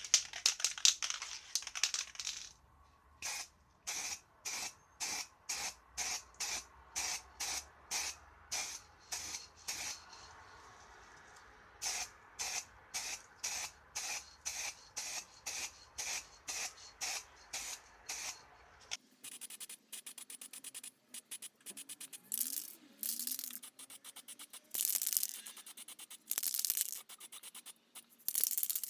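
Aerosol spray-paint can shaken rhythmically, its mixing ball rattling at about two strokes a second, then sprayed in several short hissing bursts in the last third.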